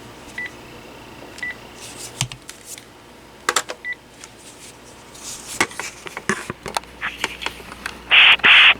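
Panasonic DECT 6.0 cordless phone handset giving short single-tone key beeps, three of them spread over the first four seconds, with plastic button clicks as its keys are pressed. Near the end come two loud, short hissing bursts in quick succession.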